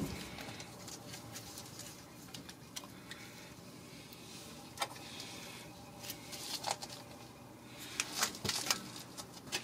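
A few light clicks and taps of hands working on a truck's rear brake caliper and tools, one about 5 seconds in, another near 7 seconds and a small cluster near the end, over a quiet steady background.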